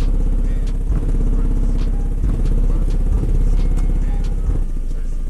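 American Bass XFL 12 twelve-inch car subwoofer playing loud, deep bass notes in a car trunk, each held for a second or so with short breaks between them, nearly all the sound in the low bass. Brief clicks and rattles sound over it.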